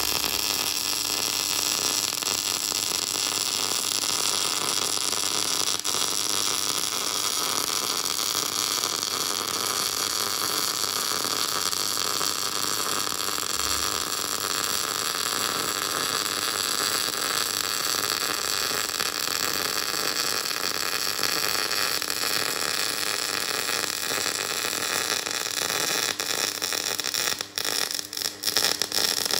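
MIG welder arc burning a long continuous weld with a steady hiss. Near the end it breaks off and restarts several times in quick succession.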